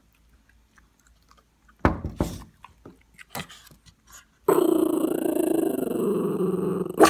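A sudden thump about two seconds in, then a dog close by growls steadily for about two and a half seconds.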